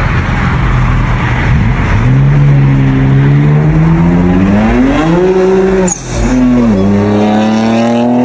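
A car accelerating hard away. Two seconds of loud, rough noise give way to the engine note climbing steadily in pitch for about four seconds. About six seconds in the note drops at an upshift, then climbs again.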